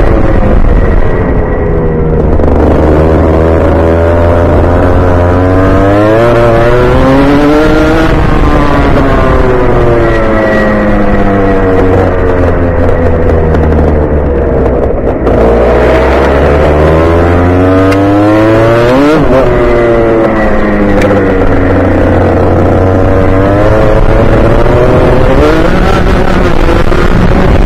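Rotax Junior Max kart's 125cc two-stroke engine heard close up onboard, revving up in long climbs and dropping off sharply, several times over, as it accelerates along the straights and lifts for the corners.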